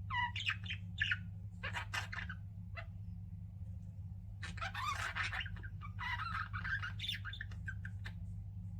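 Pet budgerigars chirping and chattering in short bursts: a few quick calls at first, a pause of about two seconds, then a busier stretch of chatter. A steady low hum runs underneath.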